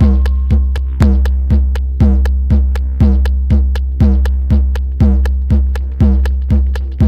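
Electronic music: a drum-machine beat at about two strokes a second with lighter high ticks between, over a steady deep bass. A held tone fades out about a second in.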